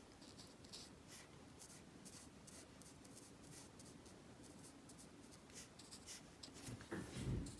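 Faint soft strokes of a watercolour brush on watercolour paper, brushing in colour with short, irregular swishes.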